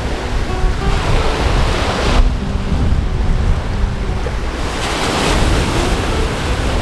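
Surf washing ashore, with two louder surges of wash, the first about a second in and the second about five seconds in. Wind rumbles on the microphone throughout.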